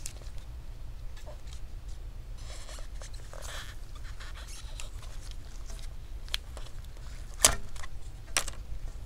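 Gloved fingers working a laptop LCD's ribbon-cable connector: faint scratchy rustling, then a few sharp plastic clicks late on, the loudest about seven and a half seconds in, as the connector is unplugged from the screen panel. A low steady hum sits underneath.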